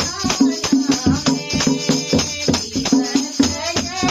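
Devotional bhajan music with a steady beat of jingling, rattling percussion under a melody line, between sung verses.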